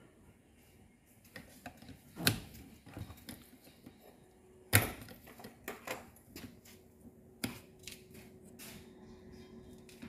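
Irregular clicks and knocks of hard plastic as a screwdriver levers the drain pump of an Indesit condenser dryer out of its plastic housing. There are sharp snaps about two, five and seven and a half seconds in.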